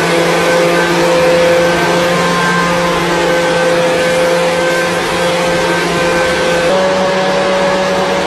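Vacuum cleaner motor running steadily with a whine, blowing air through a hose to inflate a giant ball; its pitch steps up slightly near the end.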